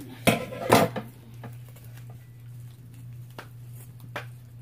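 A few sharp clatters of small objects being handled: two loud ones close together in the first second, two fainter ones later, over a steady low hum.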